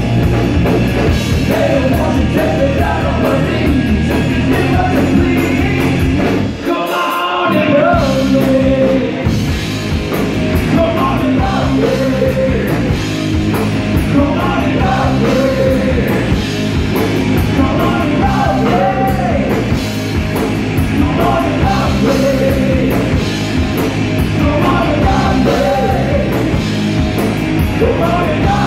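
Live rock band playing: electric guitar, bass guitar and drums, with a man singing. About six and a half seconds in, the bass and drums drop out for about a second, then the full band comes back in.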